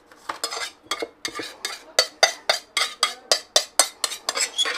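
Metal knife blade scraping around the inside of a glass mixing bowl to gather mashed potato filling, in quick repeated strokes that speed up to about four a second.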